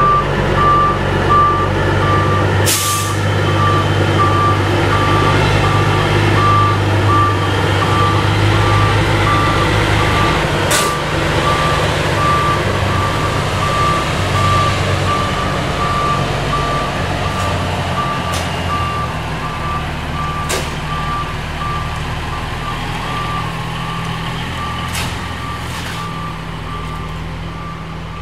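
Diesel dump truck running and manoeuvring, its back-up alarm beeping steadily throughout, with a loud hiss of air brakes about three seconds in. The engine fades over the last few seconds as the truck moves off.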